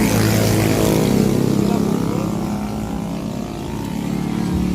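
A motor vehicle engine running steadily, a low hum that holds one pitch.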